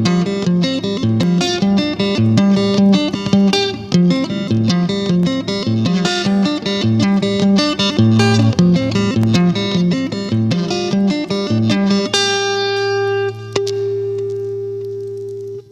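Tokai Goldstar Sound Stratocaster-style electric guitar playing a quick run of notes, then a held chord about twelve seconds in that rings and slowly fades, with one more note struck partway through it.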